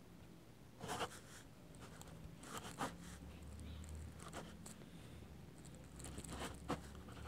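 Pen scratching on paper as a signature is written: faint, short strokes, a few of them a second or two apart.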